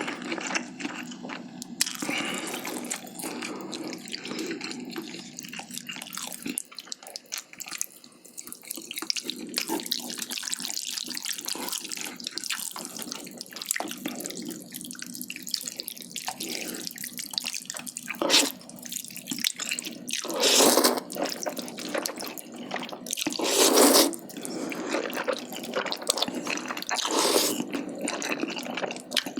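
Close-miked wet chewing and mouth sounds of someone eating spicy braised chicken with glass noodles and rice, with several louder bursts in the second half.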